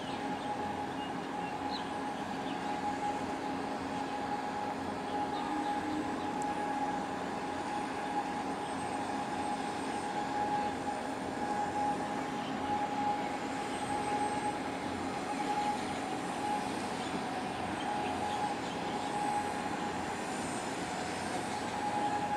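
Steady mechanical drone of a 115,000-tonne crude oil tanker under way close by, with a constant hum running through it.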